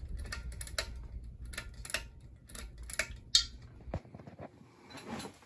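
A ceiling fan's pull-chain switch clicked over to high speed, the chain then clinking and ticking lightly against the fan's metal housing. A low rumble runs underneath and stops suddenly about four seconds in.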